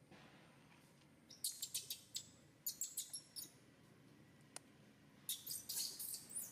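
Baby macaque crying in short, shrill, high-pitched squeals that come in three clusters: about a second and a half in, around three seconds, and near the end. These are the distress cries of a hungry infant wanting milk.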